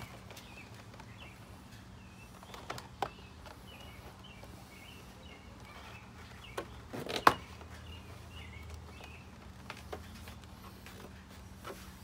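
Scattered light clicks and knocks of a vinyl siding outside-corner piece being pressed by hand into the siding channels, with one sharp snap about seven seconds in as the loudest sound. Faint bird chirps sound in the background through the first half.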